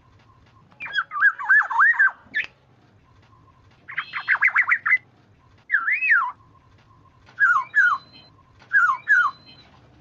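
Black-naped oriole (kepodang) calling in about five bursts of quick, fluty whistles that sweep up and down, with short pauses between them: a call played as a lure to draw other orioles.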